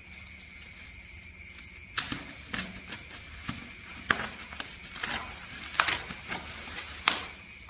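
Packaging being handled by hand: a string of sharp clicks, crackles and knocks beginning about two seconds in, over a steady faint hum with a thin high tone.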